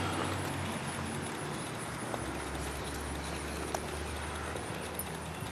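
Footsteps of a person walking on pavement, over a steady low hum that grows stronger about two seconds in, with a few faint clicks.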